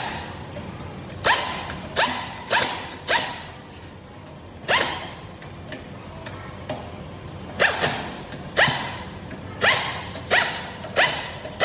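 Hammer striking metal: about a dozen sharp blows at irregular spacing, some in quick pairs, each leaving a short metallic ring.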